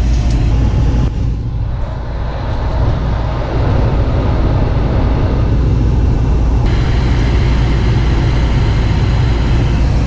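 Lennox G51MP gas furnace running on a call for heat: a steady low rumble from its blower and combustion air inducer, briefly a little quieter about a second in, with a brighter hiss coming in about two-thirds of the way through.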